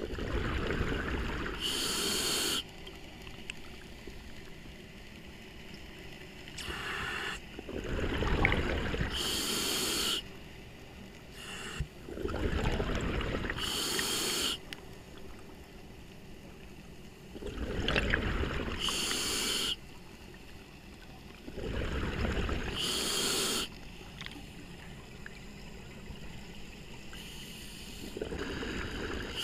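Scuba diver breathing through a regulator underwater: slow repeating breaths, each a hiss of inhaled gas and a rush of exhaust bubbles, about one breath every five seconds.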